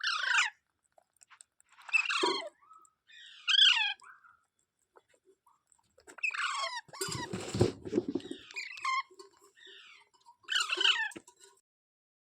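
Indian ringneck parrot (rose-ringed parakeet) giving a series of short, sharp calls, each dropping quickly in pitch, spaced a second or two apart. About seven seconds in there is a rustling noise burst lasting over a second.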